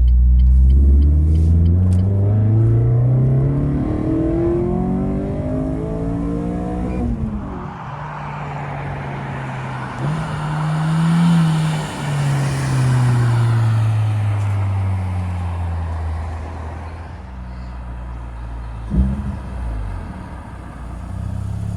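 Renault Sport Clio 200's naturally aspirated 2.0-litre four-cylinder engine revving up under load, its pitch rising steadily for about seven seconds. Then comes a rush of broader noise and a brief blip, after which the revs fall away slowly. A single sharp knock comes near the end.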